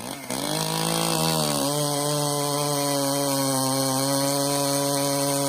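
Chainsaw engine revving up over about the first second and a half, then held at full throttle at a steady high pitch.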